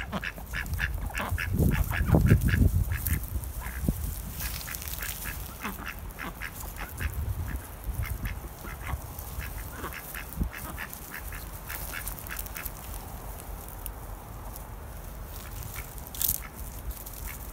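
Small flock of ducks quacking softly as they forage, in quick runs of short calls that thin out after about ten seconds.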